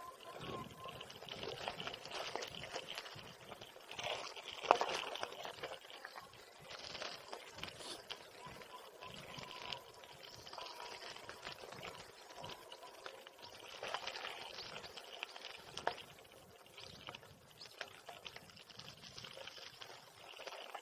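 Bicycle tyres crunching and crackling over a loose gravel track, with small rattles from the bike and one sharp knock about five seconds in. Picked up by an action camera hanging from a neck strap on the rider.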